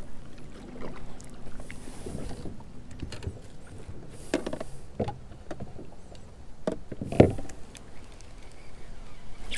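Scattered knocks, clicks and rubbing from a spinning rod and reel being handled in a plastic kayak, with one sharper knock about seven seconds in.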